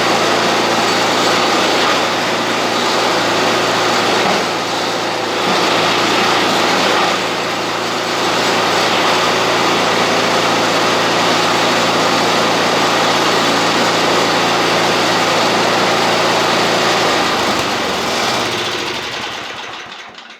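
Small gasoline engine running steadily at a fast idle. About three seconds before the end it is shut off and winds down to a stop.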